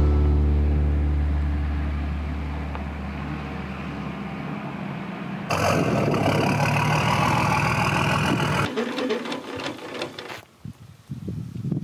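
A guitar music track fades out. About five seconds in, a vehicle's diesel engine starts to be heard running steadily beside the caravan hitch: the Nissan GU Patrol's TD42 straight-six. Near the end come scattered metal clanks and rattles as the coupling and jockey wheel are worked by hand.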